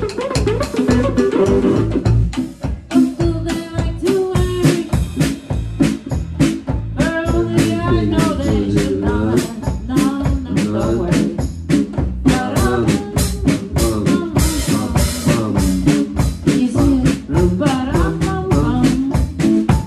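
Live band playing, heard from right beside the drum kit: a steady beat of drums and cymbal hits under a guitar line.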